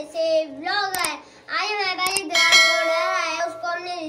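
A child's voice speaking in a sing-song way, with two sharp clicks about one and two seconds in and a bell-like chime just after the second, the sound effects of a subscribe-button animation.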